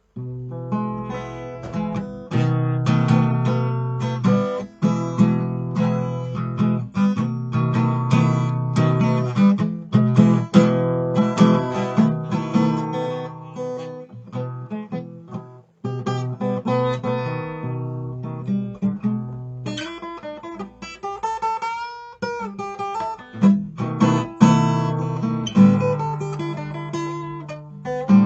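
Solo acoustic guitar playing a blues instrumental, mixing picked notes and strummed chords, with a passage of notes bent in pitch about two-thirds of the way through.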